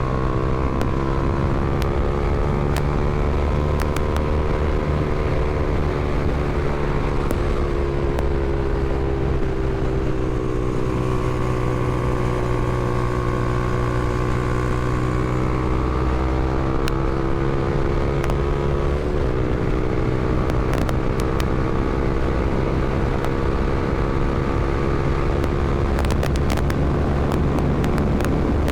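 Honda CBR300R's single-cylinder engine running steadily under way, its note dipping slightly in pitch and rising again. A few light clicks come near the end.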